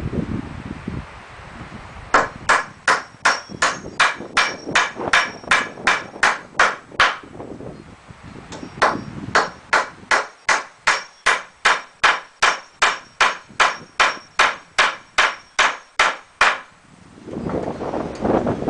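A hammer driving nails into wooden framing: two long runs of quick, even blows, about four or five a second, with a short pause between them. A rustle of handling follows near the end.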